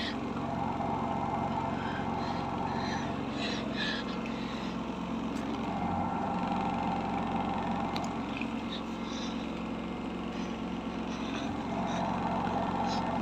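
Samsung washing machine spinning an unbalanced load: a steady motor and drum hum that swells and fades about every five seconds, with a few scattered clicks and knocks.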